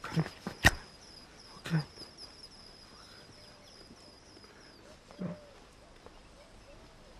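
Forest ambience from a film soundtrack: a rapid, high chirping repeats steadily and stops about five seconds in. Near the start a single sharp click stands out, loudest of all, with a few short low thumps around it.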